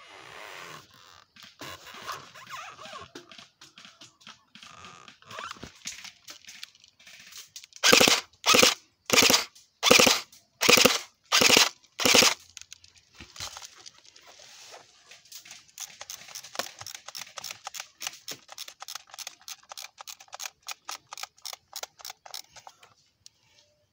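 Airsoft guns firing during a skirmish: scattered shots at first, then about eight loud short bursts of fire close by, about half a second apart, then a long run of rapid popping shots.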